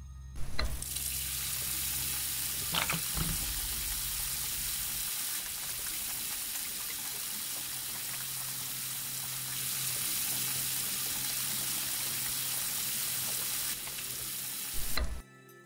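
Tap water running from a faucet into a stainless steel washbasin as hands are washed under the stream. It starts suddenly with a click about half a second in, runs steadily, and stops abruptly near the end.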